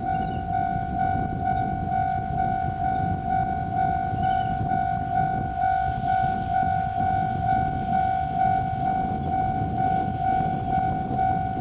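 Japanese railway level-crossing warning bell ringing in an even, rapid clang of about two and a half strokes a second, over a steady low rumble of a train at the crossing.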